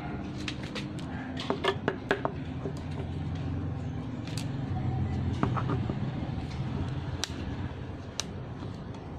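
Light clicks and knocks of handling: a quick cluster about two seconds in, then single sharp clicks now and then. They come from a motorcycle handlebar switch assembly and an analog multimeter with its test leads being set down and handled on a wooden table. A steady low rumble runs underneath.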